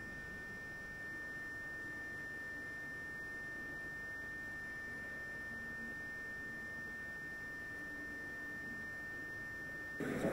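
A steady, high-pitched electronic whine over faint hiss, from the old camcorder recording itself. It cuts off suddenly near the end, where louder voices come in.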